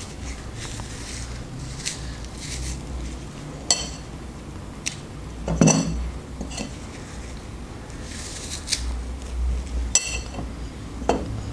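Knife clicking and scraping against a plate while an apple is cut into slices by hand: a handful of separate sharp clicks spread over several seconds, over a steady low room hum.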